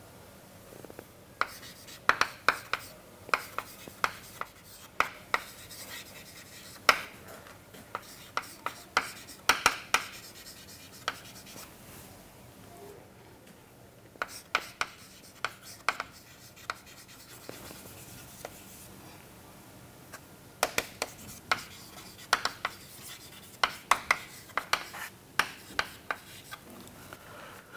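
Chalk on a chalkboard: sharp taps and short scratches as words are written by hand, coming in spells with brief pauses about 12 and 18 seconds in.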